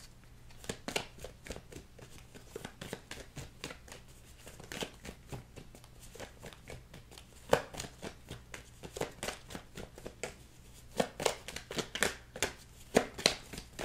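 A deck of cards being shuffled by hand: a steady run of soft card flicks and slaps, with louder, sharper slaps about halfway through and again in the last few seconds.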